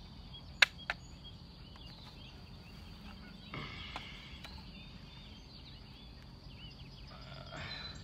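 Small birds chirping and calling, with two sharp clicks close together about half a second in and a brief rustle a few seconds later.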